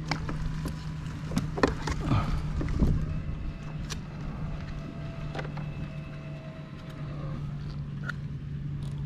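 Kayak on the water: scattered knocks and clicks of gear against the hull, loudest in the first three seconds, over wind rumble and a steady low hum.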